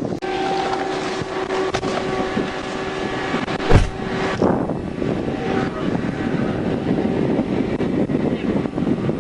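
Wind buffeting a body-worn camera microphone outdoors, with a steady two-note hum for the first half and one sharp thump just under four seconds in.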